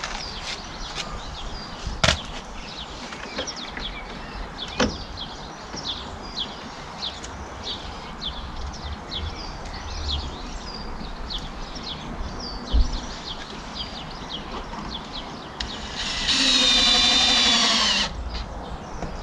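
Cordless drill whirring for about two seconds near the end, its pitch wavering under load as it drives into the wooden shed wall while a trellis is fixed up. Before that, three sharp knocks, with a bird chirping over and over in the background.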